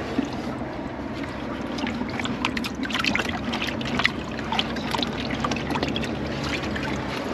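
Water splashing and sloshing in a plastic bucket as hands grab a speckled trout in it, with a quick run of short splashes in the middle.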